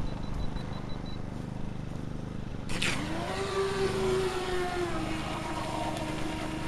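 Aquacraft SuperVee 27 electric RC boat's UL-1 brushless motor spinning up suddenly about three seconds in as the boat launches, then holding a steady high-pitched whine with the hiss of spray as it runs away at speed.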